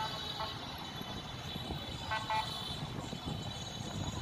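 Distant city traffic rumbling below, punctuated by short vehicle horn toots: one at the start, a quick double beep about two seconds in, and another near the end.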